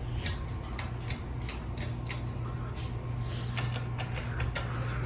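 Ceiling fans running: a steady low motor hum with irregular sharp clicks and ticks, a few a second.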